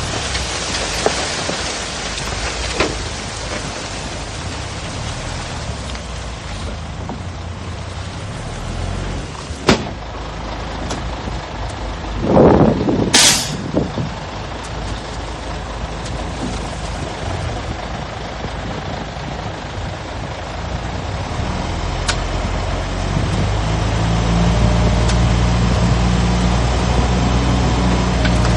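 Heavy diesel earthmoving machinery running steadily, with a short, sharp hiss of a truck's air brakes about 13 seconds in. A deep engine grows louder over the last several seconds.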